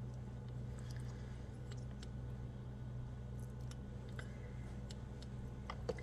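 Metal spoon faintly scraping and clicking as it scoops cacao powder into a small plastic container, over a steady low electrical hum.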